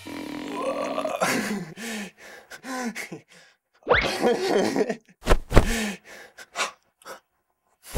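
A man groaning, grunting and gasping with strain in short bursts, broken by brief silences.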